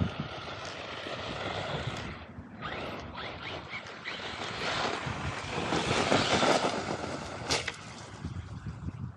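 RC monster truck driving over dirt and gravel: the motor whines up and down with the throttle over the rumble of the tyres, louder for a couple of seconds past the middle, with one sharp knock near the end.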